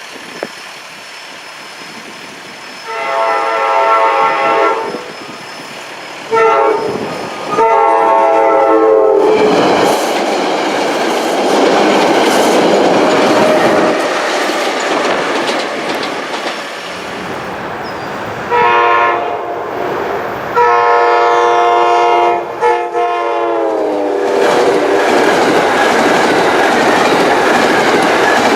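SEPTA Regional Rail train's K5LA five-chime air horn sounded in two groups of blasts, the chord dropping in pitch at the end of each group as the train passes. The rumble and wheel clatter of the passing train fill the gaps between.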